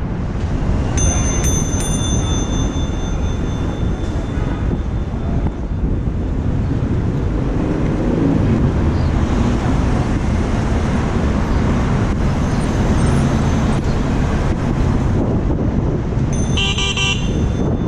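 Steady city street traffic noise with a heavy low rumble. There is a brief high-pitched ring about a second in, and a short buzzing tone near the end.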